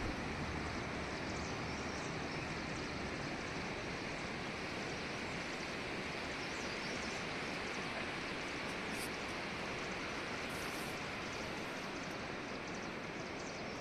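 Steady, even rushing noise with no distinct events, like flowing water or wind outdoors.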